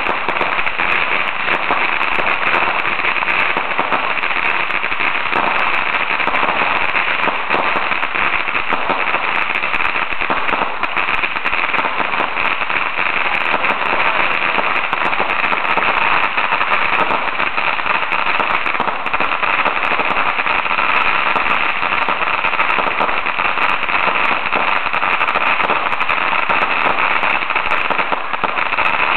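A long string of firecrackers going off in a rapid, continuous crackle of sharp pops that never lets up.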